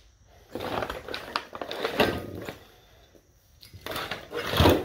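Handling noise: brown paper rustling and a steel bracket with loose bolts knocking as they are picked up, in two spells with a few sharp clinks.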